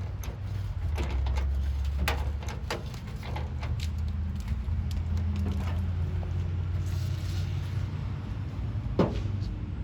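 Scattered sharp knocks and clicks over a steady low rumble, with the loudest knock near the end.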